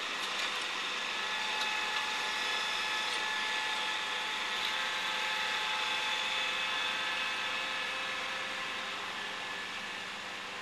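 Kubota ride-on front mower running steadily, a mechanical drone with a high whine over it. It grows fainter near the end as the mower drives away.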